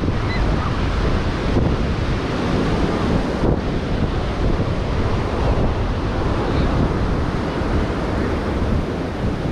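Ocean surf washing onto the beach, with wind buffeting the microphone as a steady low rumble.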